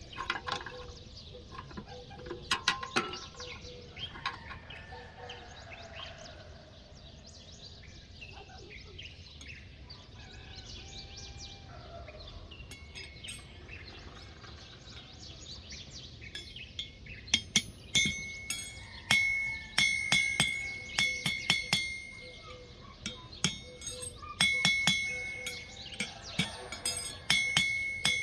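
Hand hammer striking a bent iron flat-bar scroll on a steel anvil: a run of sharp blows starting a little past the middle, each leaving a high, steady ring. Earlier there are a few metal clinks from the scroll being worked in a bending jig.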